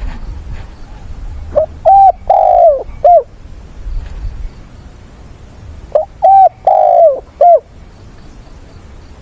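Spotted dove cooing: two phrases about four seconds apart, each of four short arched coos, the third coo longer and rougher than the rest.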